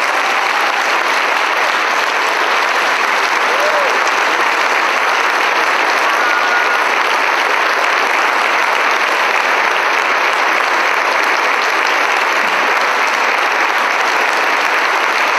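Large audience applauding steadily, a long sustained round of clapping.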